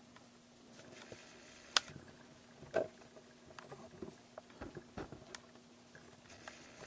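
Foam packing inserts and cardboard packaging being handled during unpacking: light rustling and scraping with scattered taps. A sharp click comes a little under two seconds in, and a soft thump about a second later.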